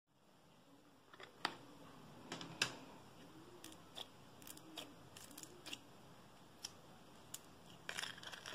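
Blue slime studded with tiny beads being pressed with the fingers and peeled out of its plastic tub, giving scattered sharp little clicks and snaps. A small burst of them comes near the end.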